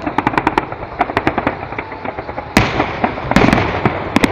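Aerial fireworks shells bursting: a rapid run of sharp crackling pops, with one big bang about two and a half seconds in followed by a dense wash of crackle.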